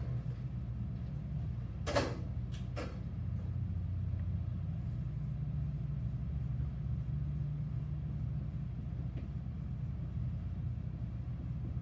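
Steady low mechanical hum, with two or three sharp knocks about two to three seconds in.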